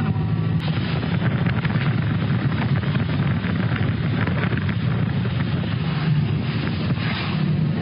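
Steady engine and road noise of a car driving, heard from inside the car, with wind buffeting the microphone.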